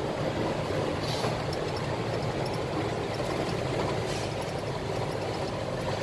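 Steady drone of a Scania 113 truck's diesel engine and road noise while driving along the highway, with two brief rushes of noise, about a second in and again about four seconds in.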